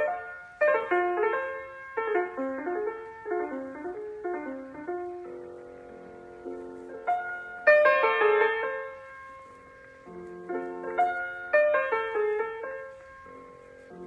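Piano music: flowing phrases of struck notes that ring and fade, with the loudest chord about eight seconds in.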